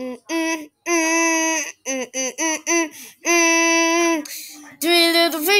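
A high voice singing a tune without clear words, short notes broken up by two long held notes.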